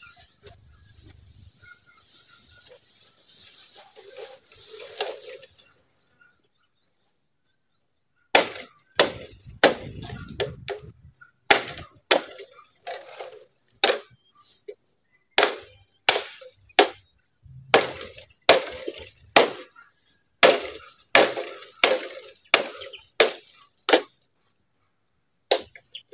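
Bamboo stems being chopped with a blade: from about eight seconds in, a long series of sharp, cracking blows, roughly one to two a second in short groups. Before that, a rustling hiss and a brief lull.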